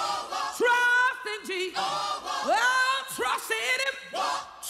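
Gospel singing: long held notes that swoop up into pitch, with little or no instrumental backing.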